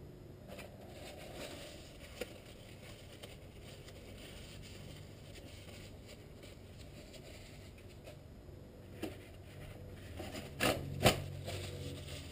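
Faint rustling and scraping of a paper towel being worked between the hands as they are wiped clean, with a few small ticks of handling and two sharp clicks in quick succession about a second before the end.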